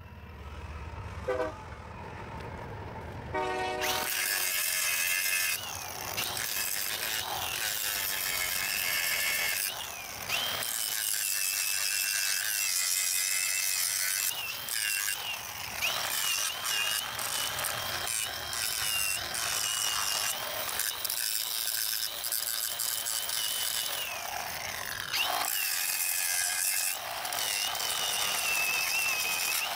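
Cordless Milwaukee angle grinder grinding down the steel of a railroad switch point: a loud, steady hiss with a wavering high whine from the disc on the rail. It starts about four seconds in and eases off briefly several times as the disc is lifted and reset.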